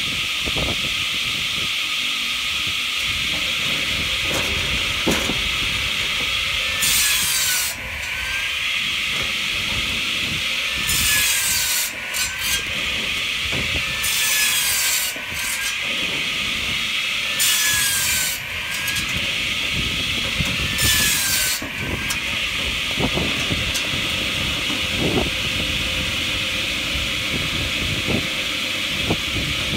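Hartnett 500mm electric log saw bench: the circular saw disc spins with a steady whine and cuts through logs five times in quick succession. Each cut lasts about a second, the blade's pitch dipping under the load and recovering. For the last several seconds the saw runs free.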